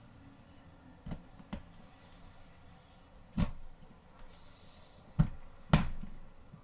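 Desk fan parts being handled during assembly: about five sharp knocks and clicks, the louder ones from the middle on, the last two about half a second apart.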